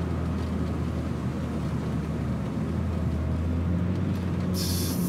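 Steady hum of a car driving, engine and road noise heard from inside the cabin. A brief hiss comes near the end.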